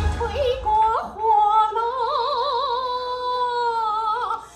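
A woman singing a Chinese folk song over a PA with only light backing: a quick rising phrase about a second in, then one long high note with wide vibrato that breaks off near the end.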